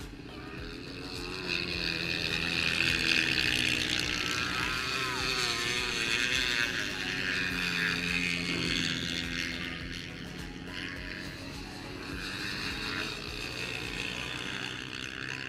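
Several racing dirt bike engines revving hard as the bikes race across the ice. The sound swells about a second and a half in and fades after about ten seconds as they move off.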